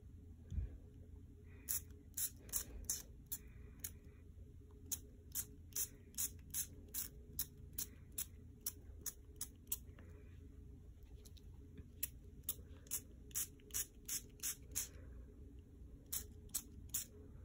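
Quick rubbing strokes over a marker drawing on notebook paper, each a short hissy swish, about two to three a second, coming in runs with short pauses between them.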